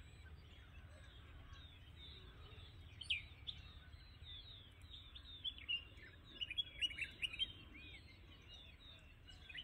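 Faint bird calls: scattered short chirps and whistles, busiest from about five to eight seconds in, over a low steady background rumble.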